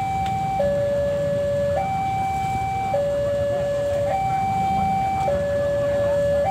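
Railway level-crossing warning alarm sounding its electronic two-tone signal, swapping between a higher and a lower tone about every second, the sign that a train is approaching. A low traffic rumble runs underneath.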